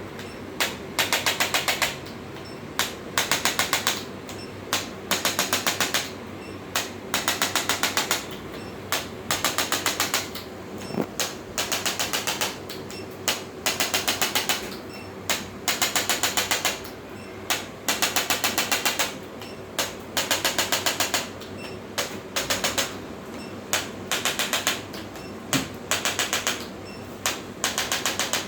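Short bursts of very rapid mechanical tapping, some brief and some close to a second long, repeating about every second, like a handheld electric percussion device being pressed on and off the body.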